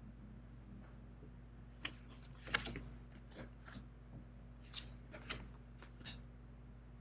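Tarot cards being handled: top cards lifted off their decks and new cards laid down, a series of short card slaps and slides. The busiest cluster comes about two seconds in, then two more groups of slaps follow.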